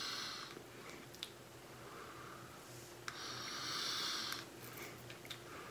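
Air hissing as it is drawn through an Aspire Breeze NXT pod vape, its airflow set about halfway: one draw fading out about half a second in, a longer one starting about three seconds in. Faint clicks about a second in and again as the second draw begins.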